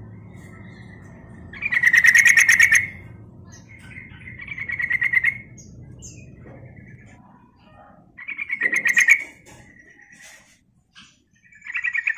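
Yellow-vented bulbul (trucukan) calling: four bursts of quick chattering notes, each about a second long, with softer single notes in between.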